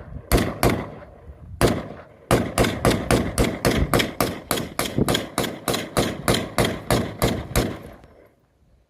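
AR-15 rifle firing rapidly. Two shots, a single shot, then a fast string of about twenty shots at roughly four a second, each with a short echo.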